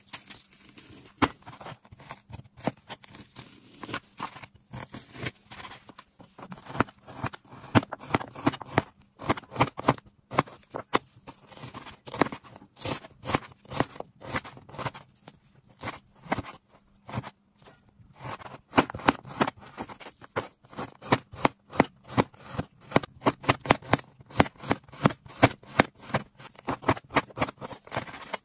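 Chinese cleaver chopping meat on a cutting board: a series of sharp knocks of the blade through the meat onto the board, coming in quick runs of several chops a second with short pauses between.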